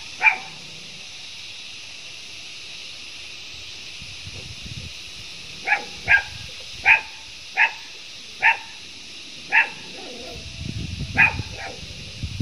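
A dog barking about eight times in short single barks, roughly one a second, from about halfway through, over a steady high hiss. A low rumble comes in near the end.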